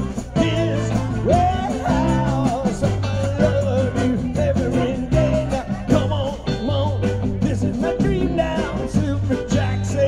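Live rock band playing, with a steady bass line and a lead melody with bending notes over it.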